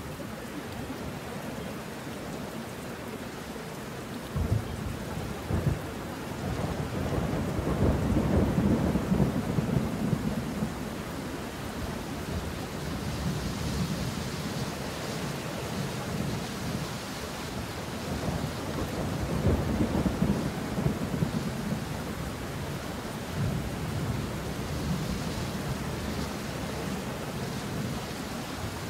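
Steady rain with rolling thunder. The rumbles swell several times, the longest and loudest about eight to eleven seconds in, with two short sharp cracks shortly before it.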